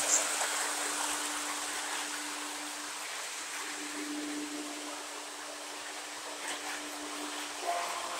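O gauge electric model train running round the layout loop: a steady rolling hiss of wheels on the metal track with a steady low hum. It eases off a little mid-way and starts building again near the end as the train comes back round.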